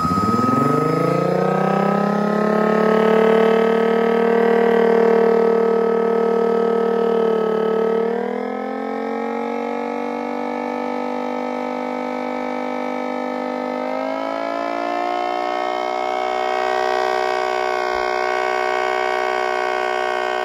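3D-printed miniature Federal Signal Thunderbolt 1003 siren sounding as the blower feeding it is switched on: a many-toned wail that winds up steeply over the first two seconds, then holds steady, shifting in pitch about eight seconds in and rising again around fourteen seconds, and starting to fall at the very end.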